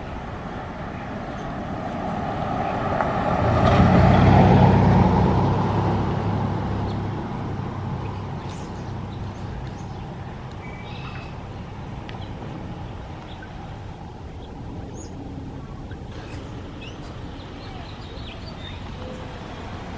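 A motor vehicle drives past, growing loud to a peak about four seconds in and then fading away, over steady road traffic noise. A few faint bird calls come later.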